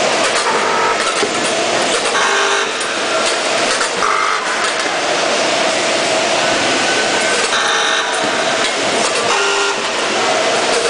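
Multihead weigher running with whole beetroots: a steady machine hum with a held tone, and irregular bursts of clatter as the beets knock through the feed pans and hoppers.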